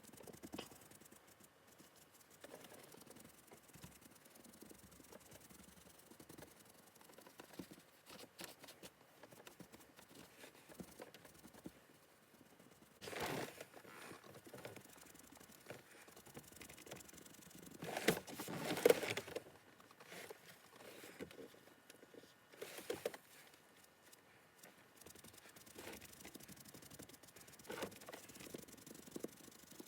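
Faint, scattered scuffing and rubbing of a sponge dabbing leather colourant onto a leather car seat, with louder rustling about 13 s and again about 18 to 19 seconds in.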